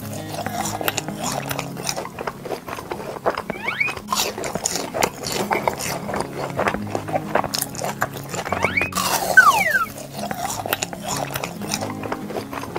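Cartoon background music with a simple low melody, dotted with short clicky sound effects. There is a brief gliding effect a little before four seconds in, and about nine seconds in comes a louder, noisier effect with a falling pitch glide.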